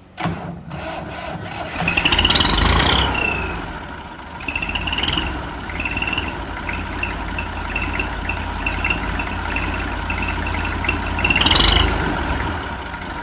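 IMT 533 tractor's diesel engine running, swelling louder twice, with high-pitched squeals and a quick run of short chirps over it, the noise of its loose fan belt.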